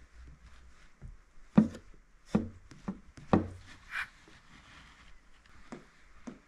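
A small squeegee and hands working wet paint protection film onto a vehicle's windshield pillar: several sharp knocks and rubs between about one and a half and three and a half seconds in, the first the loudest, then a brief higher scrape about four seconds in.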